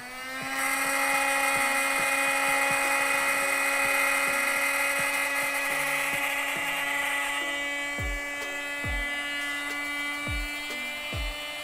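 Electric air pump for inflatables switching on and spinning up, then running with a steady whine and hiss as it blows air into an inflatable pool. A few dull low thumps come in near the end.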